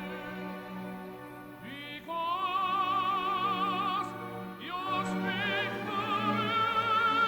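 Operatic tenor singing with orchestra: the voice comes in about two seconds in with wide vibrato on long held notes, moving up to a higher sustained note in the second half.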